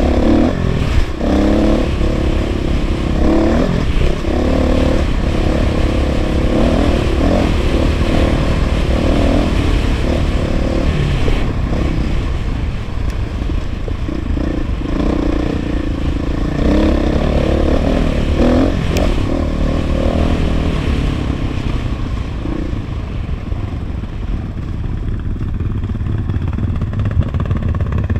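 KTM 500 EXC's single-cylinder four-stroke engine revving up and down while the bike is ridden along a dirt trail, easing off for a few seconds near the end.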